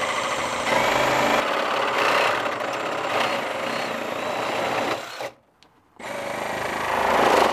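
Cordless drill driving screws through a fence bracket. It runs for about five seconds, getting louder for a moment about a second in, stops briefly, then starts again.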